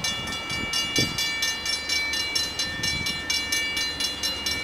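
Railroad grade-crossing warning bell ringing rapidly, about four strikes a second, with each strike's ringing tones running on into the next, warning of an approaching train.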